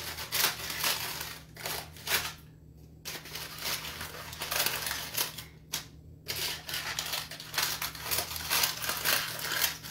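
Hand rubbing and scraping inside a round metal baking pan while preparing it, an irregular run of short scraping and rustling strokes with a couple of brief pauses.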